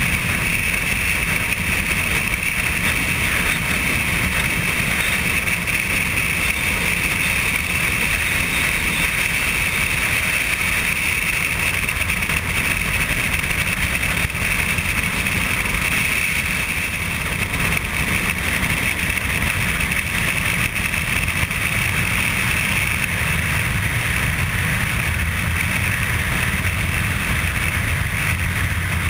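Motorcycle cruising at a steady speed, heard from a camera mounted on the bike: a constant engine drone mixed with wind rushing over the microphone.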